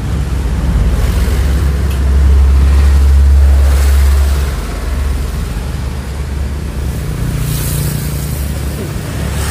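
Low rumble of road traffic, a vehicle engine running as it passes close by, loudest about two to four seconds in, then easing to a steady traffic hum.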